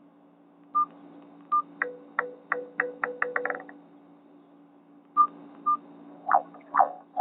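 A Nokia 6790 Surge ringtone playing through a Nokia 216's loudspeaker: two short beeps, then a quickening run of falling electronic notes that each drop to the same low tone. After a pause of about a second and a half the pattern starts again.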